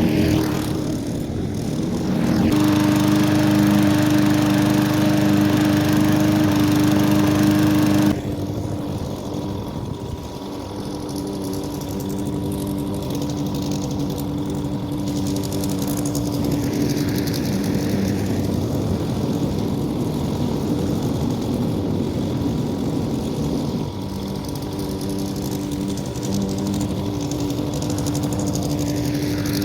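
Briggs & Stratton engine on a push lawn mower running steadily. It runs louder and rougher for a stretch early on, then drops at about eight seconds in and carries on running evenly.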